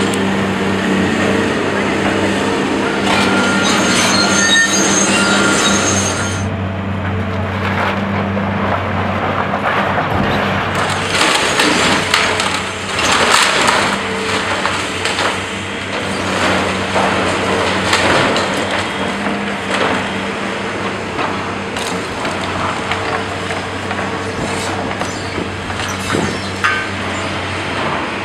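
Heavy diesel demolition machinery running steadily, with demolition debris crashing and clattering in repeated bursts, busiest in the middle.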